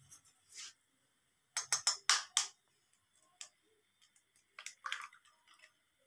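A hen's egg being tapped against a knife blade to crack its shell over a small glass bowl. There are two groups of sharp taps and clicks, one about two seconds in and one near five seconds.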